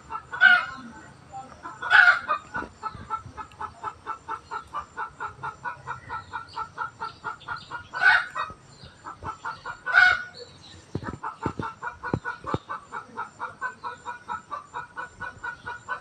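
Chickens clucking: a long run of short, even clucks at about four or five a second, broken by a few louder single calls, with a short pause in the middle.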